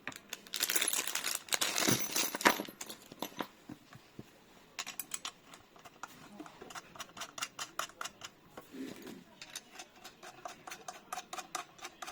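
Small lock hardware being handled: a rustle for the first couple of seconds, then a long run of light, irregular metal clicks and ticks as parts are fitted and worked by hand.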